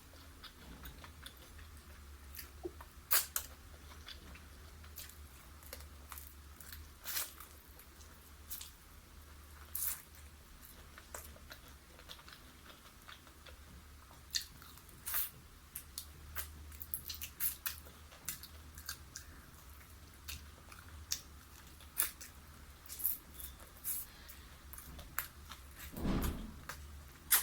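Close-miked chewing and biting into crispy fried chicken: irregular sharp crunches and clicks, over a steady low hum.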